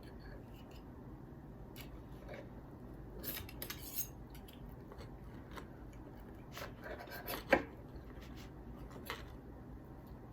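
Cutlery clicking and scraping against a frozen-dinner tray as the tough barbecue rib patty is cut into. The clicks come in two clusters, about three to four seconds in and again about six and a half to seven and a half seconds in, ending in one sharp clack.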